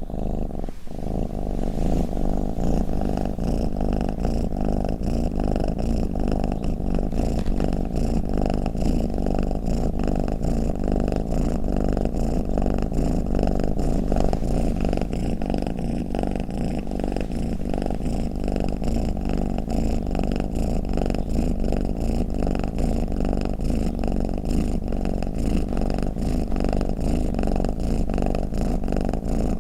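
Domestic cat purring steadily, a continuous fast-pulsing rumble, with a brief break about a second in.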